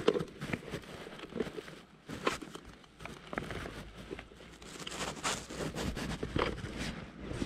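Handling noise: irregular rustling and light clicks of a jacket and small tackle being handled close to a chest-worn camera.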